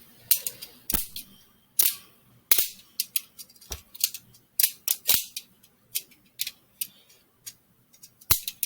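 Homemade Lego balisong being flipped: its plastic brick handles and blade clack together in a quick, irregular series of sharp clicks as they swing open and shut.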